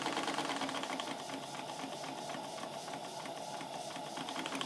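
Small horizontal model steam engine running fast on live steam, a rapid, even mechanical clatter. Steam hisses from the leaking steam chest.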